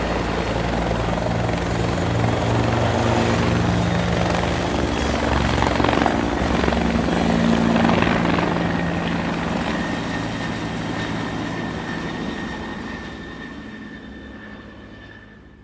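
Helicopter running, with a steady high turbine whine over the low churn of the rotor. It is loudest about halfway through, then fades away steadily over the last several seconds.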